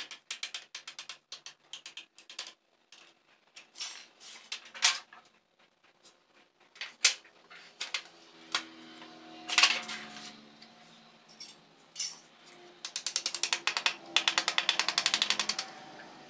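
Utility knife cutting a thin sheet laid on a board, in repeated short scraping strokes that give a dry, clicking chatter, ending with a fast run of clicks about three seconds long.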